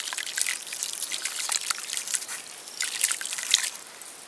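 Handfuls of coarse rock salt sprinkled into a metal pot of water full of eggs: crystals hitting the water in many quick light ticks and small splashes, in two spells, the second starting near the three-second mark. The water is being salted so the eggs can boil without cracking.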